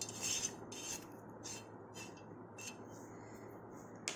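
Fried peanuts and curry leaves being tipped into a bowl of dry, crunchy fried mixture snack: a few short, quiet, crisp rustles.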